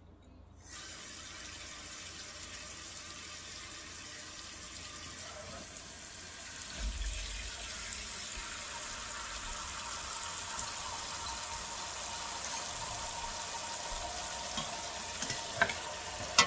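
Kitchen tap water pouring steadily into a stainless steel pot of parboiled pork bones in a steel sink, rinsing off the blood and fat. The flow starts about a second in. Near the end a plastic ladle knocks a few times against the pot.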